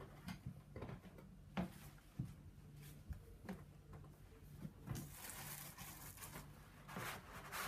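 Cardboard box and packaging being handled: scattered light knocks and scrapes as hands press on and reach into the box, turning into a denser rustling of the packaging in the last few seconds.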